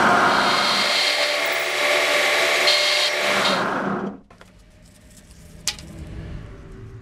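End mill cutting a pocket into the steel ball peen of a hammer head: a steady harsh machining whir with high ringing tones, which stops abruptly about four seconds in, leaving a faint low hum and one sharp click.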